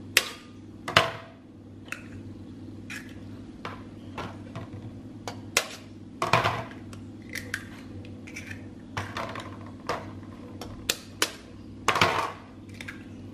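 Chicken eggs being cracked with a kitchen knife over a ceramic bowl: sharp single taps of the blade on the shells, a few at a time, with small knocks of shells and knife being set down. A steady low hum runs underneath.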